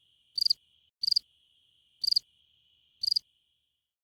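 Cricket chirping: four short high chirps about a second apart, each a quick trill of a few pulses, over a faint steady high trill that stops near the end.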